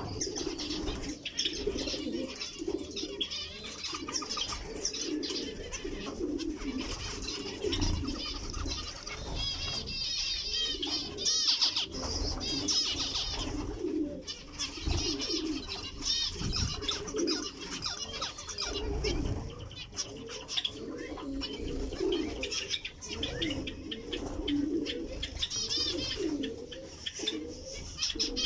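Caged birds, among them zebra finches, calling continuously: a steady run of low repeated calls, with bursts of high, chirping song about a third of the way in and again near the end.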